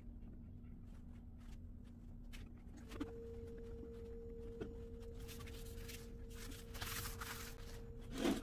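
Faint handling noises at a work table: soft taps and short rustles over a steady hum that steps up in pitch about three seconds in.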